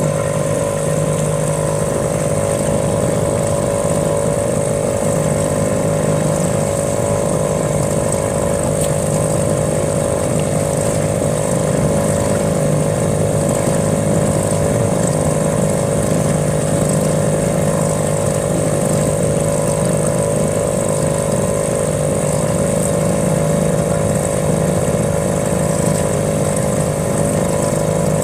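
Small boat outboard motor running at a steady speed, an even, unchanging engine drone.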